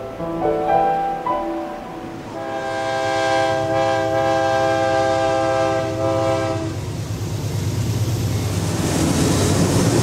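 Diesel locomotive air horn sounding one long chord for about four seconds, followed by the rumble and rail clatter of a freight train passing, growing louder toward the end.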